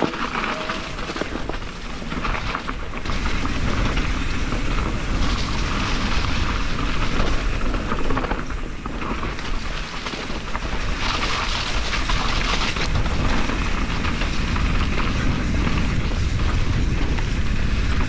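A 2019 YT Capra carbon mountain bike riding down a dirt trail, recorded on a GoPro on the rider or bike: heavy wind rumble on the microphone over the noise of tyres on the ground and the bike rattling, growing louder about three seconds in as the bike picks up speed.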